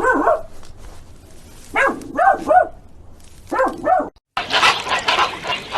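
An animal barking in short, pitched yelps, about seven of them in three quick groups. A little over four seconds in the audio cuts to a different, busy, crackling sound.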